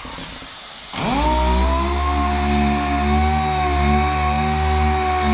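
An electric motor starts about a second in, spins up quickly and then runs at a steady pitch with a strong low hum.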